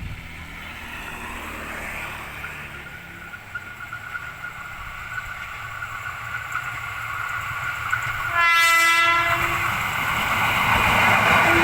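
KRL Commuter Line electric train approaching with rising rolling noise and a steady high whine, then one short horn blast of about a second, the driver's greeting to trackside watchers; the loud run of the train past follows.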